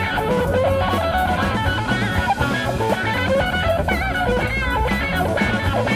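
Instrumental passage of a gospel rock band song: a guitar playing a melodic line with bending notes over bass and a drum kit.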